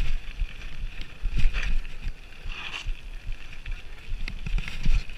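Wind buffeting the microphone over the crunch of mountain bike tyres rolling fast on a gravel road, with scattered clicks and rattles from the bike over bumps.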